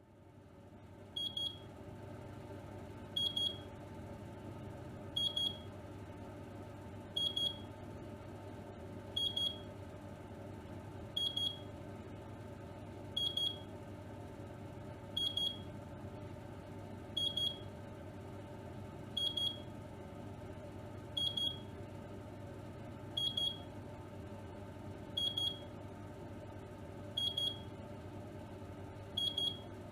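Oven running with a steady hum, its electronic beeper sounding a quick double beep about every two seconds.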